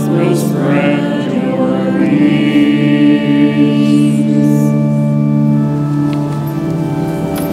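A hymn being sung with organ accompaniment, voices and organ holding long sustained chords.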